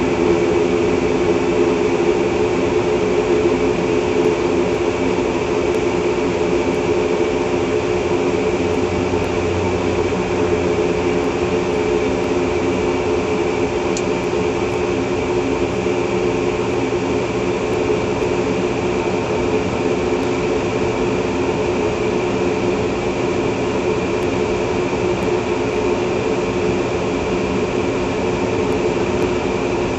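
Gas central furnace running after its new hot-surface ignitor was fitted: a steady, loud machine drone with several even humming tones, the sound of the burner and blower working.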